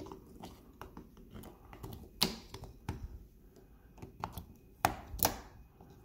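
AA batteries being pressed one by one into the plastic battery holder of an electronic keypad deadbolt: a run of light clicks and rattles, with a few sharper snaps as the cells seat against the spring contacts, the loudest about two seconds in and near the end.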